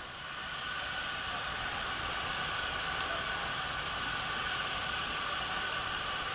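Miniature live-steam locomotive standing with a steady hiss of steam that swells about a second in, with a faint high tone running through it. A single sharp click about three seconds in.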